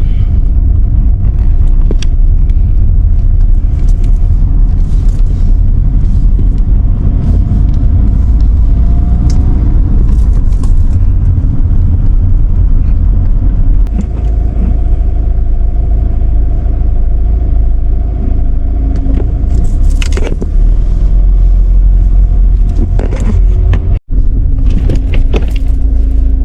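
Car interior road noise while driving in city traffic: a steady, loud low rumble of engine and tyres, with scattered light rattles and clicks. The sound briefly cuts out near the end.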